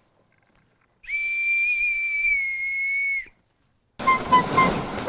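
Brass bosun's whistle blown in one steady, high, slightly wavering note for a little over two seconds, cut off sharply. About four seconds in, music with a rushing hiss begins.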